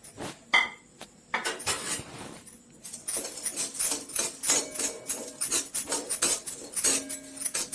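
Metal spoon scraping and clinking against a kadai as whole spices are stirred and sautéed in oil. There are a few separate knocks at first, then from about three seconds in a quick run of scraping strokes, several a second.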